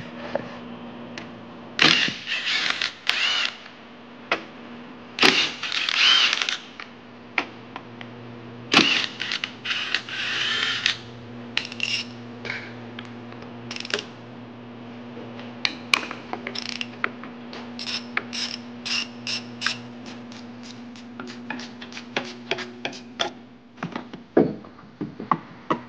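Ratchet wrench working bolts in an engine bay: a few second-long runs of rapid ratcheting in the first half, then many short separate clicks, about two or three a second, as the handle is swung back and forth.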